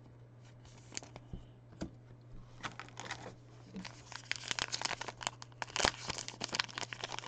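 Foil wrapper of a 2020 Topps Allen & Ginter trading card pack being crinkled and torn open. It starts with a few scattered clicks, then turns into a dense run of crackling from about a third of the way in.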